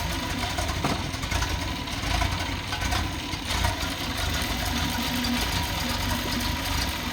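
Nissan 280ZX turbo's L28ET inline-six idling steadily on an engine test stand, running on a replacement ECU that makes it run really rich.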